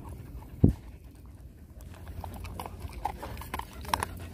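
A dog eating dry kibble from a stainless steel bowl: a run of small crunching clicks as it chews and nudges the pellets. A single dull thump, the loudest sound, comes about half a second in.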